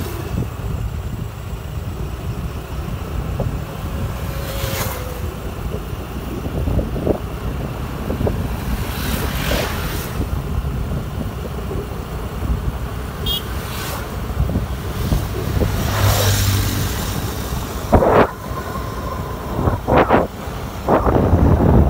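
Honda Activa 5G scooter's 110 cc single-cylinder engine and tyres running steadily on the road, under a low rumble of wind on the microphone. Wind buffets the microphone in short gusts several times, most strongly near the end.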